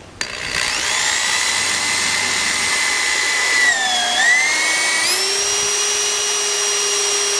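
Corded electric drill spinning up and drilling through a car door trim panel, with a high motor whine. About four seconds in the whine sags in pitch as the bit bites under load. Near five seconds it speeds up again and holds a higher, steady pitch.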